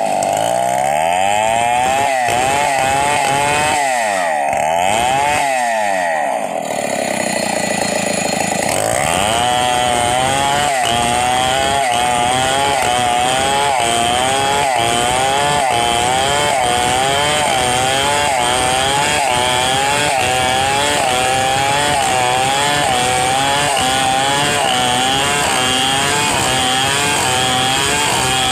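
Stihl 070 two-stroke chainsaw ripping a log lengthwise into planks. For the first eight seconds or so the engine pitch swings up and down. From about nine seconds in it holds high under load, wavering about once a second.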